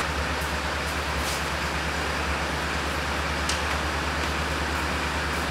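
Street traffic with a bus engine running, a steady low drone under an even rumble of traffic that starts abruptly at a cut.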